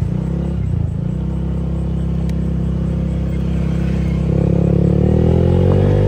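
Honda Vario scooter's single-cylinder engine running as it is ridden along, its note rising in pitch and getting louder about four seconds in as it speeds up.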